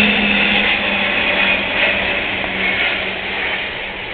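Four-engine jet transport aircraft flying low overhead and moving away: a steady engine drone with a high whine, both falling slightly in pitch as the sound fades.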